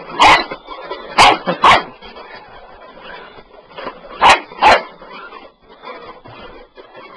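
Bull Terrier puppy barking at a sweeper it wants to attack. Five short, loud barks come in bursts: one just after the start, two about a second in, and two more a little past the four-second mark.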